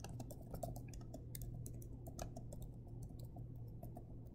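Typing on a computer keyboard: quick, irregular keystrokes clicking several times a second, quietly.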